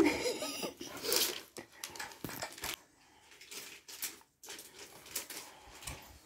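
Flat-pack furniture parts being handled: scattered light clicks, knocks and rustles of wood-veneer panels and fittings being moved and pressed together.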